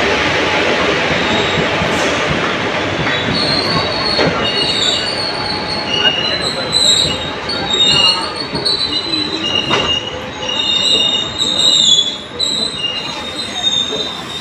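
Passenger train coaches rolling past close by, with a steady rumble of wheels on rail. From about four seconds in, a high-pitched metal squeal comes and goes, with a few sharp knocks along the way.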